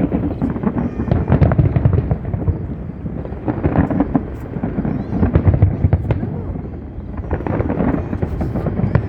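Fireworks display going off: dense volleys of crackling bangs over low booming, coming in four or five waves.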